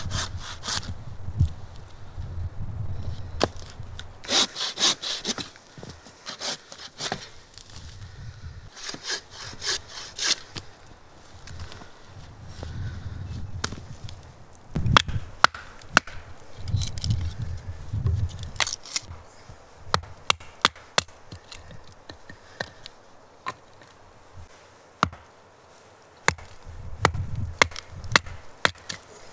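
Hand saw cutting firewood in runs of back-and-forth strokes, followed by many sharp knocks and cracks of wood being worked and handled.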